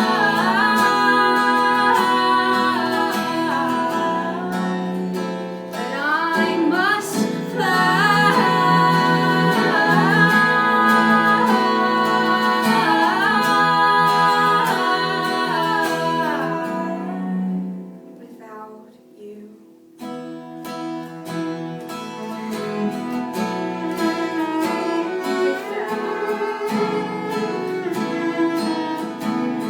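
A woman singing a melody with long, gliding notes over acoustic guitar, fading out about two-thirds of the way through; after a brief near-pause the acoustic guitar carries on strumming alone as an instrumental break.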